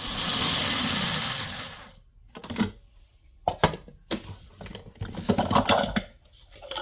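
Food processor pulsed for about two seconds, its blade chopping pumpkin seeds, then stopping. Several short knocks and clatter follow as the processor bowl is handled.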